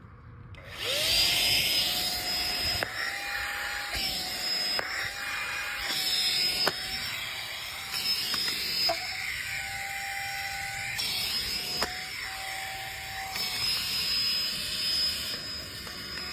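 Car vacuum cleaner running: its motor spins up about a second in, then holds a steady high-pitched whine over rushing air. The sound breaks off and shifts slightly every second or two.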